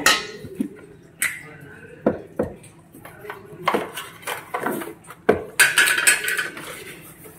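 A steel spoon stirring semolina kesari in a stainless steel pan, with scattered clinks and knocks of the spoon against the pan and a longer scrape near the end.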